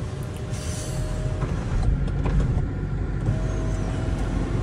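Car interior noise while driving: a steady low engine and road rumble heard from inside the cabin, with a faint steady whine that comes in twice.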